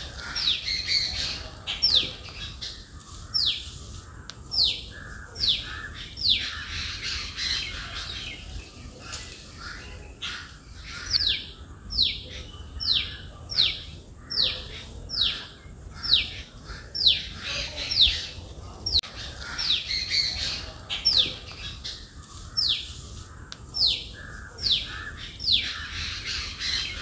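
Rose-ringed parakeet calling: runs of short, shrill calls that each slide down in pitch, about one to two a second, with brief pauses between the runs.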